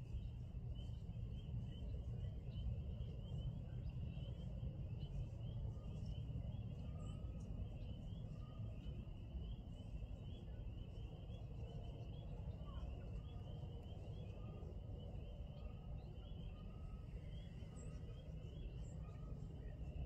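A dense evening chorus of many high, quick, slightly rising peeping calls, overlapping without a break, over a low steady rumble.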